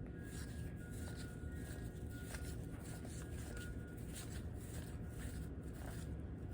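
Faint handling of cardboard baseball cards being flipped through one at a time: soft irregular clicks and rustles over a steady low room hum.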